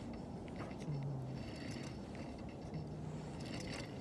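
Spinning fishing reel being cranked, a mechanical whirring with faint clicks that comes and goes, over a steady low background noise.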